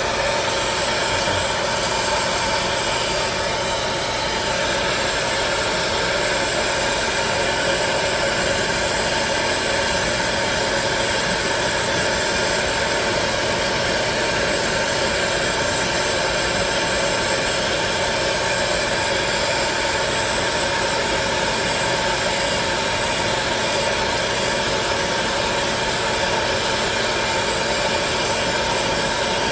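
Hot-air popcorn popper used as a heat blower, its fan motor running with a steady whir and hiss to soften the tablet's adhesive.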